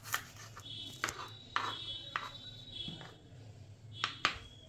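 Kitchen knife cutting carrot into small cubes on a chopping board: a handful of separate, unevenly spaced knife strokes, each a short sharp tap.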